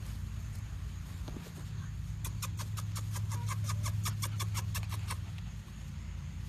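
A steady low hum, with a run of about twenty quick, sharp clicks in the middle, some seven a second, for about three seconds.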